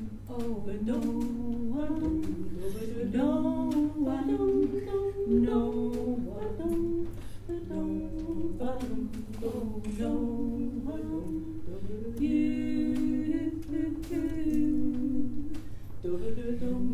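Three women's voices in close harmony, unaccompanied, with sustained and gliding notes held together.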